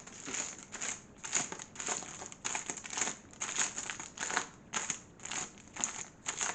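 Microwave popcorn bag crinkling as it is handled and unfolded, in a run of short crinkles about two a second.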